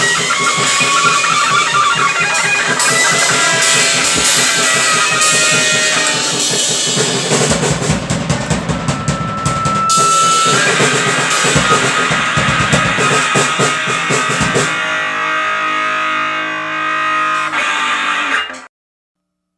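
Grind/noise-punk played on a drum kit and distorted guitar, dense and loud. For the last few seconds it thins to a ringing, held guitar chord, then cuts off suddenly near the end.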